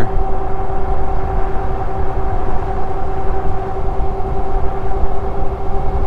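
750 W brushless motor of a fat-tire e-bike pulling at full throttle with a steady whine, under heavy wind rush on the microphone from riding at about 20–25 mph.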